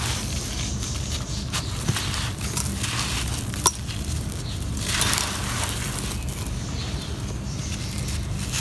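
Dry, gritty sand-and-dirt block crumbled between the hands, a steady gritty crunching with falling grains and small crackles. A sharp crack about three and a half seconds in, and a denser burst of crumbling around five seconds.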